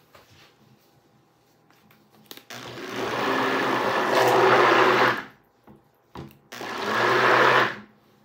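Stick blender run twice in a glass bowl of soap batter made from oils, lye and coconut milk: a motor whir of about two and a half seconds, then a shorter one of just over a second, each swelling and then cutting off sharply.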